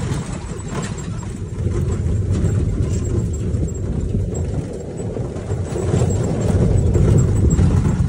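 Utility vehicle (RTV) coasting down a rough dirt track with its engine switched off: a rumble and rattle of tyres, suspension and body. It grows louder near the end.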